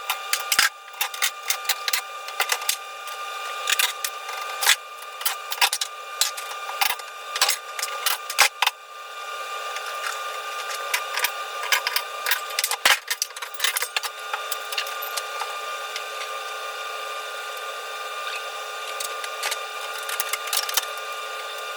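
Fast-forwarded recording of hand tools at work removing a Jeep's body mount bolts: a quick run of sharp clicks and metal knocks over a steady high hum, thin with no low end. The clicks are densest in the first half and thin out after about nine seconds.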